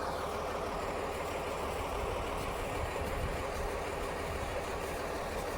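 An engine idling steadily with a low rumble and an even hiss.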